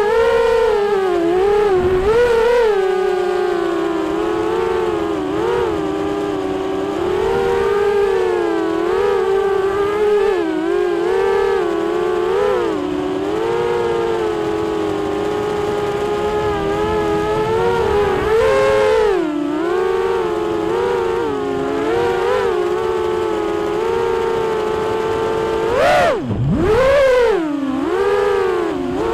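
Four brushless motors of a QAV210 FPV racing quadcopter (Multistar Elite 2306 2150kv, Dalprop 5045 props), heard from the onboard camera: a loud propeller whine whose pitch wavers up and down constantly with throttle. Near the end the pitch drops sharply and sweeps back up, as the throttle is chopped and punched again.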